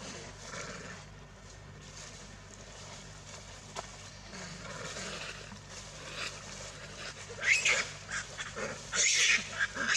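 Macaques calling: after a faint steady background, a run of short, loud squealing calls begins about seven seconds in and grows busier near the end.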